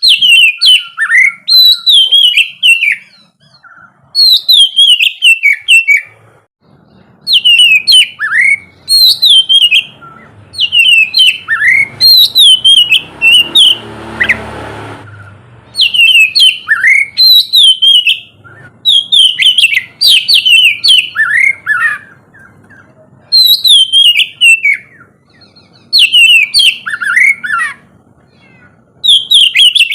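Oriental magpie-robin (kacer) singing in loud, repeated phrases of fast, gliding whistled notes. Each phrase lasts two to three seconds, with short pauses between. A brief rushing noise swells and fades about halfway through.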